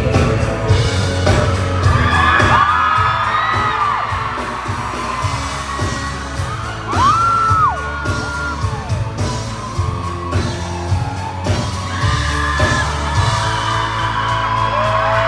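Live band music with heavy drums, bass and singing, recorded from the audience, with fans whooping and yelling over it; the low drums and bass stop near the end.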